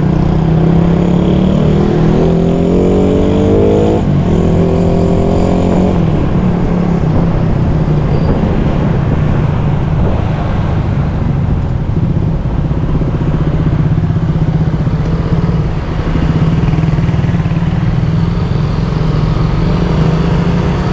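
Motorcycle engine running under way, rising in pitch as it accelerates, dropping back sharply about four seconds in as it shifts up, then climbing again and settling to a steady cruise, over a constant rush of wind and road noise.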